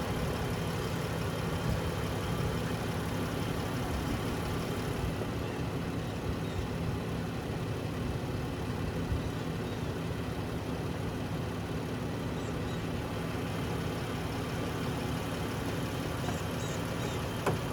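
Car engine idling steadily, left running for a few minutes to put charge back into the battery.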